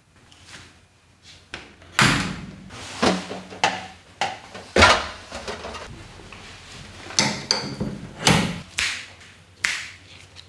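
A series of irregular knocks and clanks from hard parts being handled, tapped or set down in a workshop. A few of them ring briefly, like metal.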